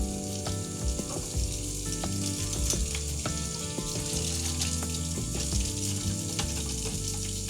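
Water running from a tap and splashing in a sink as paintbrushes are washed, a steady hiss with small splashes, over soft background music.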